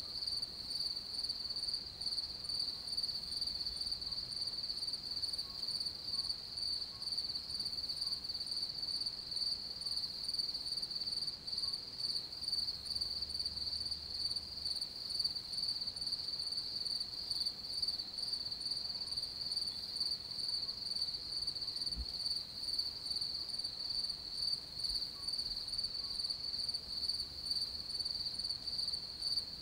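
Crickets chirping in a continuous, even, high-pitched trill that pulses rapidly and never breaks.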